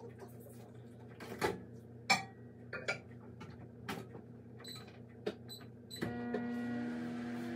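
A few knocks and clinks of kitchen items, then a microwave oven's keypad beeping about four times as buttons are pressed, and the microwave starting up with a steady hum about six seconds in.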